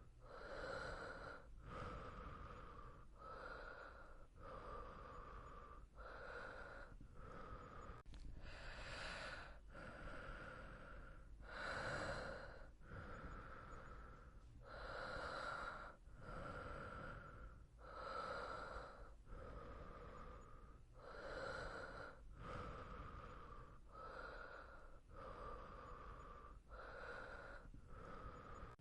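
A sleeping person breathing softly and slowly, breaths in and out following each other in a steady rhythm about every second and a half.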